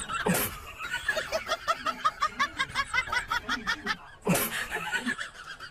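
A person laughing in a fast run of short, high-pitched notes, with a short rush of noise about four seconds in.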